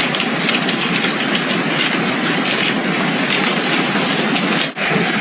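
Hailstorm: a dense, steady roar of hailstones pelting down, full of tiny rapid hits. It cuts off abruptly near the end and a similar steady hiss of heavy falling hail or rain follows.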